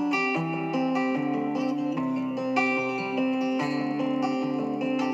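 Background music led by guitar, plucked notes and chords in a gentle melody.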